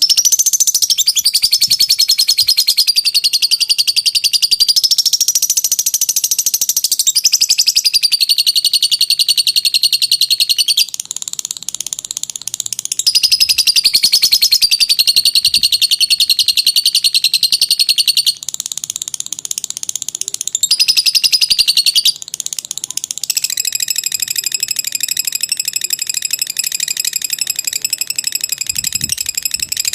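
Lovebird chattering in one long, unbroken rapid trill ('ngekek panjang'), high-pitched, with its loudness and pitch shifting every few seconds.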